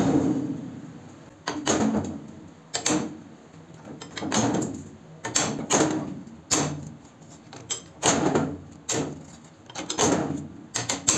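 Homemade lever-operated hole punch punching holes through thin sheet metal: repeated sharp metallic clacks, about one a second, some in quick pairs, each with a short ring.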